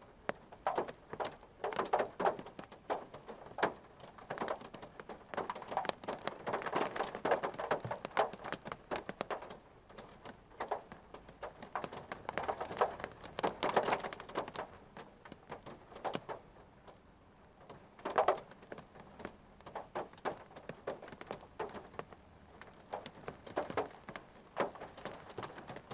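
Raindrops tapping irregularly on a parked car's body, heard from inside the car, coming in denser spells and briefly thinning out past the middle. A faint steady high whine sits underneath.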